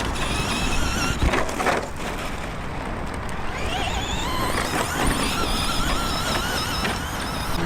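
Electric RC truck's motor whining as it drives over dirt and gravel, the whine rising and falling in pitch with the throttle, with a couple of knocks in the first two seconds.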